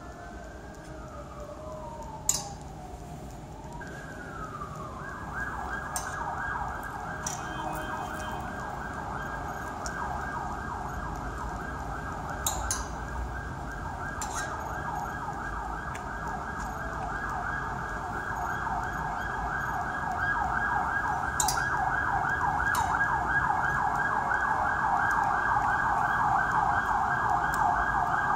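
Emergency siren: a slow rising and falling wail that switches about four seconds in to a fast yelp, which keeps on and grows louder toward the end. A few sharp clicks sound over it, the loudest about two seconds in.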